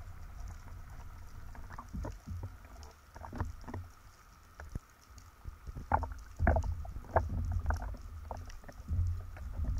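Water sloshing and splashing around a speargun-mounted underwater camera as a spearfisher surfaces and hauls in the shooting line, over a steady low rumble. Irregular sharp splashes and knocks come thickest about six to eight seconds in.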